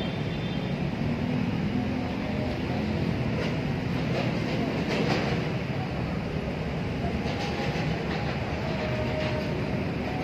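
Steady low outdoor background rumble, with a few faint clicks about four to five seconds in and again near eight seconds.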